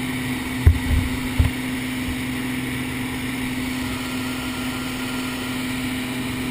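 Single-engine piston aircraft's engine and propeller droning steadily, heard inside the cabin. There are three short low thumps about a second in.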